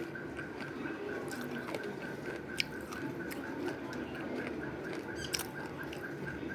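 Slate pencil being chewed close to the microphone: scattered small sharp crunches and clicks, with two louder cracks, one about a third of the way in and one near the end.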